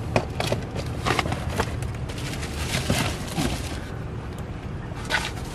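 Scattered knocks and rustling from packs of iced tea being handled, over a steady low background rumble.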